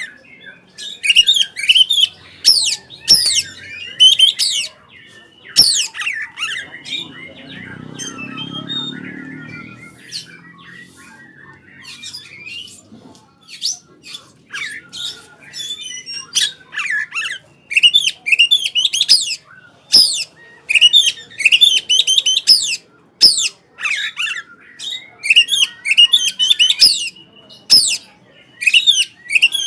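Oriental magpie-robin (kacer) singing in rapid, loud bursts of chattering, whistled phrases. There is a lull about a third of the way in, during which a faint low rumble is heard.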